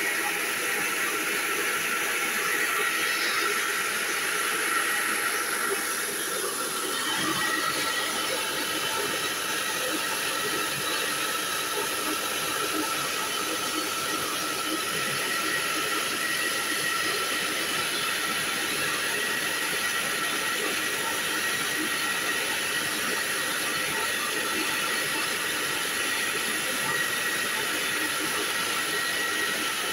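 Small rice mill running steadily as it hulls paddy, a dense hissing rush of grain and husk through the machine with a few steady high tones over it.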